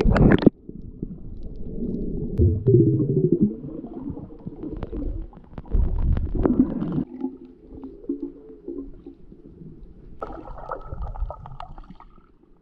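Muffled underwater sound through an action camera's waterproof housing: a short splash right at the start as the camera dips under, then water sloshing and gurgling with low, wavering rumbles.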